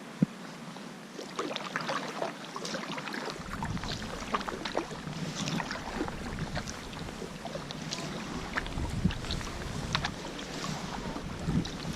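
Kayak paddle strokes splashing and dripping in the water, with a sharp knock just after the start. Wind buffets the microphone from about three seconds in.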